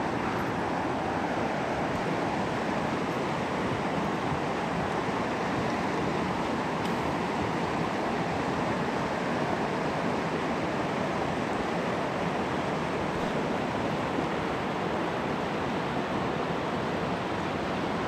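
Steady rushing of a fast mountain river pouring over a rocky riffle.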